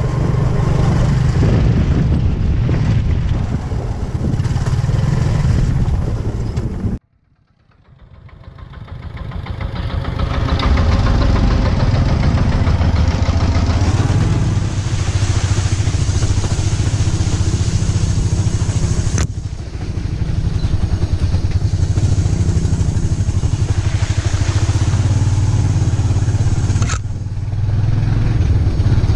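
Motorcycle engine running steadily while riding along a rough dirt track. The sound cuts out abruptly about seven seconds in and fades back up over the next few seconds.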